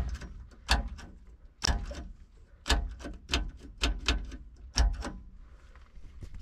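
Mechanical station-preset push buttons on a 1960s Motorola TM525A AM car radio being pressed one after another: about eight sharp clacks, roughly one every half second to a second.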